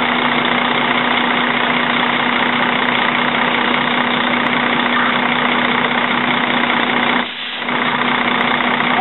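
Water gushing from a fire tanker's rear dump chute into a portable folding tank, with the truck's engine running steadily underneath. The rush drops away briefly about seven seconds in.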